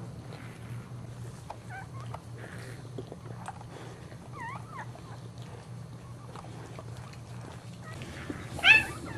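Newborn Boxer puppy giving faint, short high squeaks while its mother licks it, then one loud short cry near the end.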